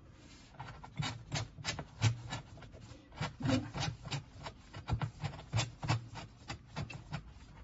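Irregular metal clicks, taps and light knocks as a workpiece is handled and clamped onto a stainless steel clamping support plate.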